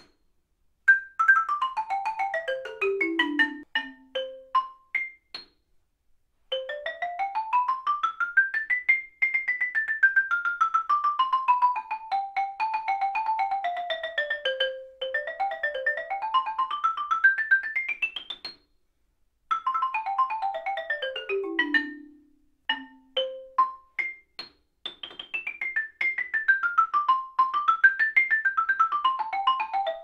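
Xylophone bars struck with several different mallet pairs in turn: Malletech NR19R, Dragonfly Practice Xylo and Dragonfly Extra Hard Marimba mallets. The playing moves through fast runs down the keyboard, scattered single notes, and a slow scale up, down and up again, with short pauses at the mallet changes.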